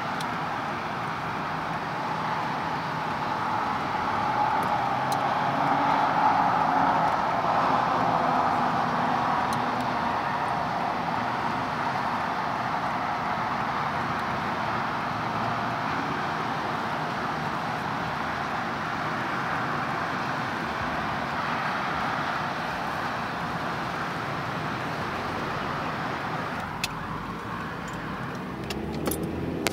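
Steady road and traffic noise of vehicles on a highway, swelling somewhat around six seconds in. Near the end come a few small knocks as the phone is handled.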